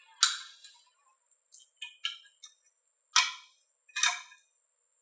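Adjustable wrench clinking against a steel hex nut and washer as the nut is tightened onto a threaded anchor rod: a series of sharp metallic clinks, loud just after the start, several smaller ones in the middle and two more loud ones near the end.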